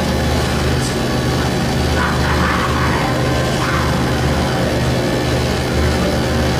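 Live harsh-noise music: a dense, loud wall of distorted electronic noise over a heavy low drone, with screeching glides breaking through about two seconds in.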